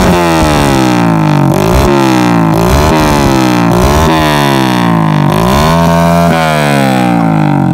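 Yamaha Jupiter Z's four-stroke single-cylinder engine revved in repeated quick throttle blips through a KJS aftermarket exhaust, each rev rising sharply and falling back. It settles to a steady idle for the last second or so.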